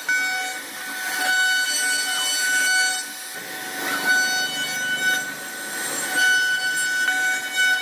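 CNC router spindle running with a steady high whine as its bit carves a decorative relief into a wooden bed panel, with the hiss of the cutter through the wood underneath. The whine dips for a moment about three seconds in.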